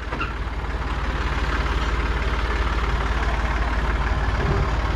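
Tractor engine idling steadily, an even low beat of firing strokes, while its rear lift is being lowered.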